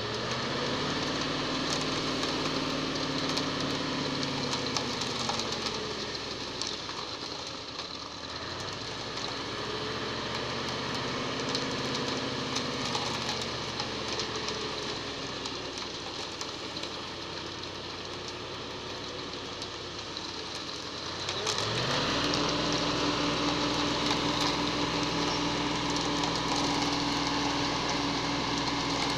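Concrete mixer truck's diesel engine running, its pitch rising and falling in slow swells, then climbing about three-quarters of the way through to a steady, louder, higher speed as it drives the drum to discharge concrete down the chute.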